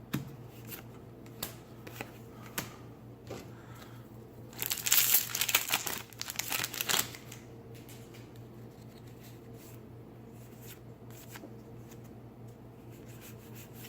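Foil Magic: The Gathering booster pack wrapper being torn open and crinkled, loudest for about two seconds near the middle, with scattered light clicks and rustles of cards being handled.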